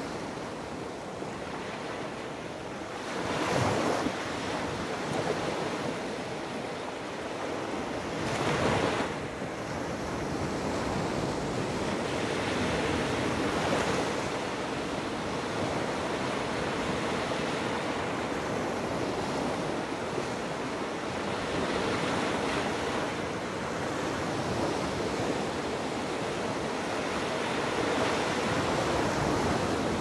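Small Gulf of Mexico waves breaking and washing up a sandy beach: a steady surf wash, with louder breaks about three and a half and nine seconds in.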